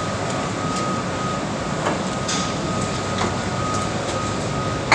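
Steady machinery noise in a boiler house, with a thin steady whine, a few faint knocks, and one sharp metallic click near the end.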